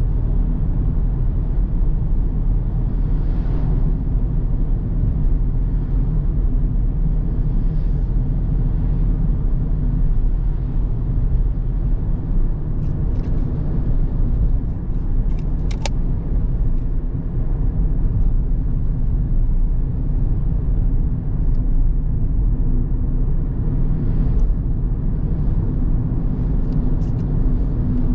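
A car being driven along a coastal road: a steady low rumble of road and engine noise, with a few faint ticks around the middle.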